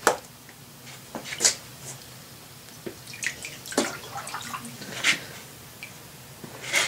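Wet, crusted tin cans being handled and set down in a cardboard tray, with water dripping: about five sharp clinks and splashy knocks spread through the moment.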